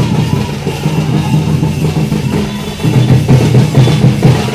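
Drums beaten by marchers, a dense, loud, continuous beat that grows louder about three seconds in.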